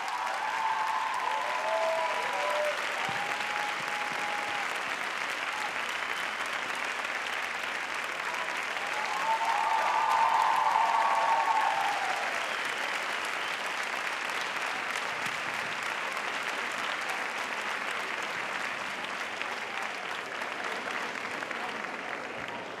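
Audience applauding steadily, swelling loudest about ten seconds in, with a few voices calling out over the clapping near the start and again at the peak.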